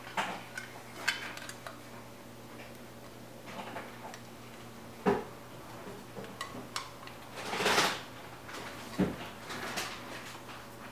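Scattered metal clicks and knocks of the dishwasher's electrical junction box cover being handled and closed, with a sharp knock about five seconds in, a short scrape just before eight seconds and a thump near nine seconds.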